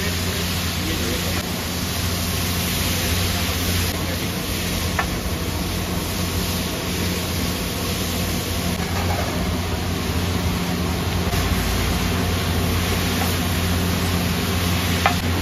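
Steady roadside street noise with a low continuous hum underneath and no distinct events.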